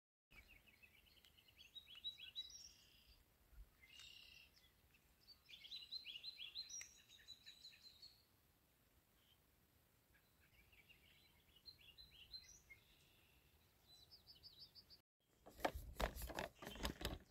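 Songbirds singing in short phrases of quick chirps and trills, faint and with pauses between them. Near the end, louder rustling and knocks of a handheld camera being picked up and moved.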